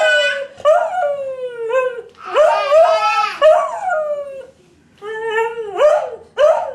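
A dog howling, set off by a baby's yelling: a run of long wavering calls that fall in pitch, with a short break about two-thirds of the way through.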